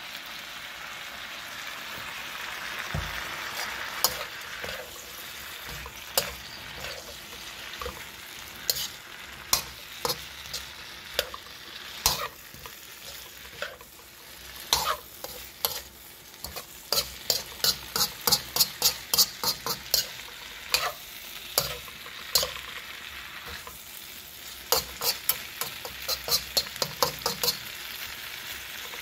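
Vegetables sizzling in a hot wok while a slotted metal spatula stirs them, scraping and clinking against the pan. The clinks come in quick runs of about three a second around the middle and again near the end.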